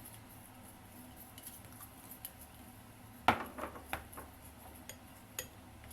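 Kitchenware clinking: one sharp knock with a brief ring about three seconds in, followed by a few lighter taps.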